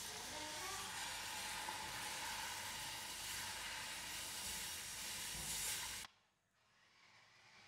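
Butter-and-flour roux sizzling and hissing in a stainless steel saucepan as milk is poured in for a béchamel. The hiss cuts off suddenly about six seconds in, leaving only faint sound.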